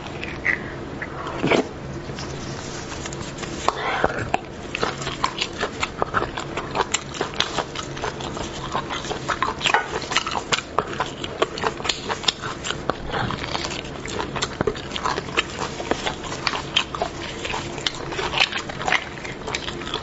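Close-miked wet mouth sounds of eating beef bone marrow from the bone: sucking and chewing, a dense run of short smacks and clicks.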